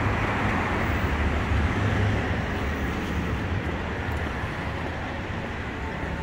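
City street traffic noise: a steady low rumble of cars and engines on a busy avenue, easing slightly after about three seconds.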